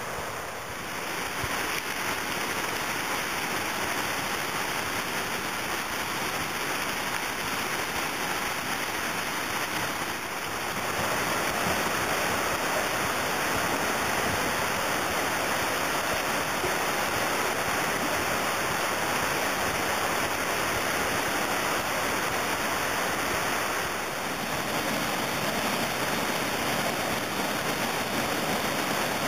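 Steady rush of river whitewater, a constant noise of rapids, a little louder from about eleven seconds in.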